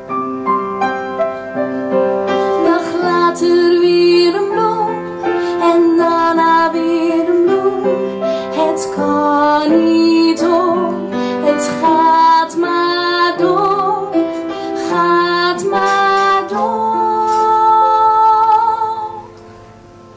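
A woman singing a slow song, with long held notes, accompanied on an upright piano. The music drops away about a second before the end.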